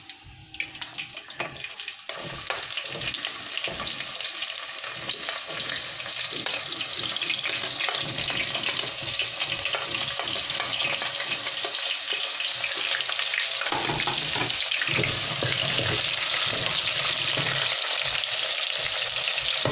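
Chopped onions sizzling as they fry in hot cooking oil, stirred with a wooden spoon scraping around an aluminium pot. The sizzle starts about two seconds in, as the onions hit the oil, and grows steadily louder.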